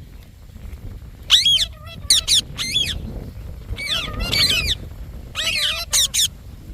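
Indian ringneck parakeet calling in four bursts of short, arching squawks.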